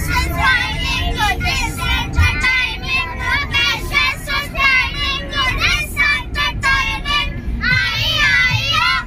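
A group of young children singing together, with a steady low rumble of the van underneath.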